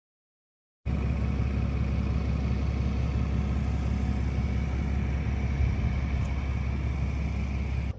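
A pickup truck's engine running at a steady, unchanging note with a low rumble. It cuts in abruptly about a second in and stops abruptly at the end.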